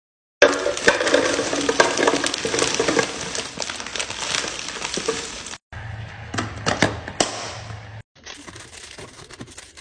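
Individually wrapped candies poured from a plastic bag into a clear plastic canister: a dense clatter of pieces hitting each other and the container, with wrapper crinkle. After a cut come fainter scattered clicks and wrapper rustling, with a steady low hum under part of it.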